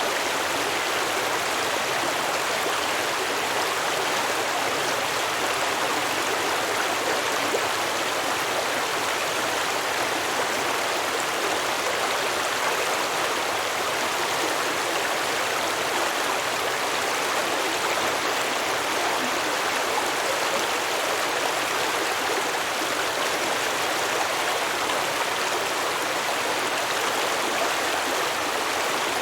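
A stream running over rocks: a steady, even rush and babble of water.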